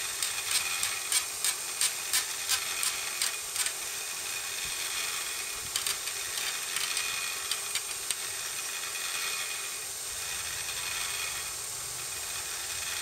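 Steel voulge head clicking and knocking against its wooden pole as it is handled and fitted: a quick run of about three sharp clicks a second for the first few seconds, then a few scattered clicks later.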